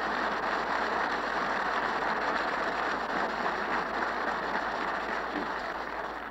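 Applause from the parliamentary benches, a steady even clatter of many hands that fades near the end, heard on an off-air tape recording of a radio broadcast.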